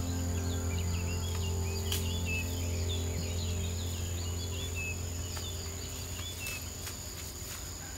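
Small birds chirping repeatedly, with a steady high insect trill, over a held low music chord that fades out over the first several seconds.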